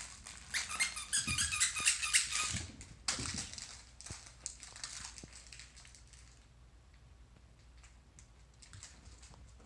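Squeaky plush dog toy squeaking rapidly over and over for about two and a half seconds as a dog bites down on it, then softer clicking and mouthing sounds that fade away.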